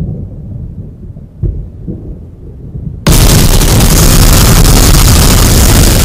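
Space-sound audio presented as the sound of Jupiter's moon Harpalyke: a low rumble with a single thump, then about three seconds in it cuts abruptly to loud, even hiss like static over a deep rumble.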